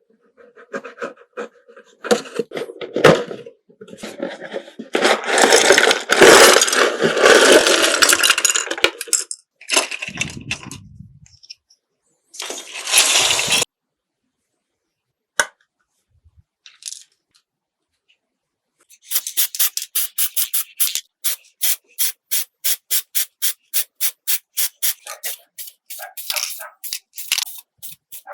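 Hand work on a small model car body: irregular rubbing and scraping, then a steady run of short sanding or filing strokes, about three a second, over the last third.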